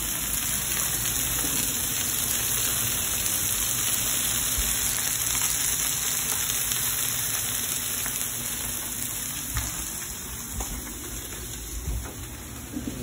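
Steaks and chicken sizzling on a Blackstone flat-top gas griddle: a steady frying hiss that grows a little quieter over the last few seconds.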